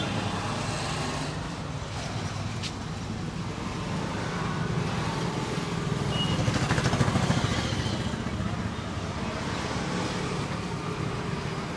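Road traffic noise, a steady rumble with a motor vehicle passing and loudest about seven seconds in.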